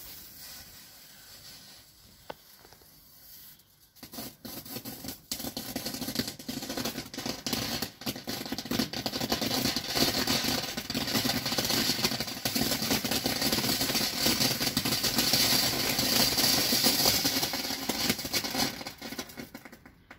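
GBV-WECO Volcano cone fountain firework: the lit fuse fizzes quietly for the first few seconds. About four seconds in the fountain catches, and a loud hissing spray full of crackles builds, holds, and dies away just before the end.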